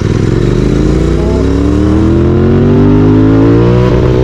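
Royal Enfield Continental GT 650's parallel-twin engine through a Red Rooster aftermarket exhaust, accelerating hard in one gear, its pitch rising steadily from about half a second in.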